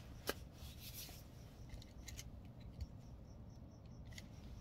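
Hands handling a printhead and small parts on a bench: faint scattered clicks and taps, with one sharper click just after the start.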